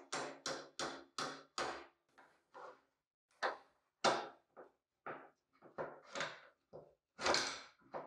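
Hammer striking a steel pin in an antique paper punch, a quick run of ringing metal taps about three a second. After a pause, pliers grip and work the punch's spring axle pin loose, with irregular metal clicks and scrapes, one longer scrape near the end.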